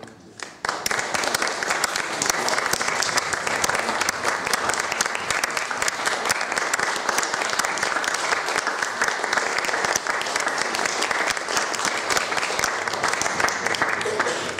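Audience applause, breaking out suddenly about a second in and holding as a steady, dense clapping.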